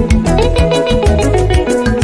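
Instrumental passage of a Shona gospel song: a bass line and bright plucked or struck melodic lines over a steady, quick beat, with no voice.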